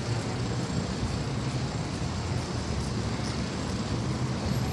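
Steady low rumble of a bicycle rolling along a concrete sidewalk, mixed with road traffic.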